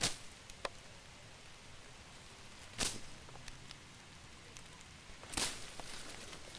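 Footsteps crunching and rustling through dry fallen leaves on a woodland path, with a few louder crunches near the start, about three seconds in and about five and a half seconds in, and small crackles between.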